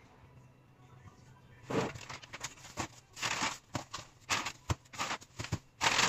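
Plastic packaging rustling and crinkling in irregular bursts as it is handled, starting about two seconds in.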